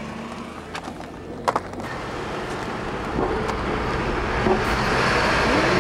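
Car driving onto a ferry, heard from inside the cabin: two sharp clunks about a second and a half in as the wheels cross the loading ramp, then a steady rumble that grows louder as it rolls onto the deck.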